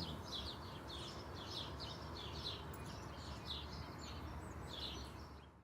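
Small birds chirping in quick, repeated high twitters over a steady background hiss, cutting out abruptly at the end.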